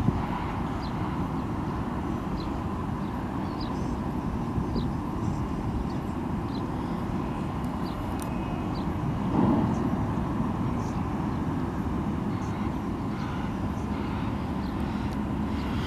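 Steady low rumble of harbour ambience, with faint short high chirps now and then and a brief louder swell about nine seconds in.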